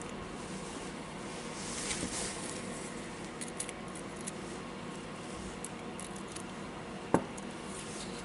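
Small metal gears and parts of a cordless drill's gearbox being handled and taken out: scattered light clicks and rattles, a brief rustle about two seconds in, and one sharp click about seven seconds in.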